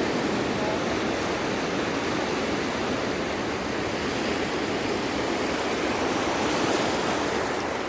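Sea waves washing on the shore in a steady, continuous rush of surf, swelling slightly near the end and easing off.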